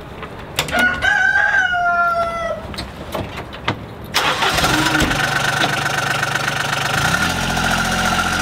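A rooster crows once, about a second in. Then, about four seconds in, a John Deere Gator UTV's engine starts and runs steadily, its pitch stepping up near the end as it pulls away.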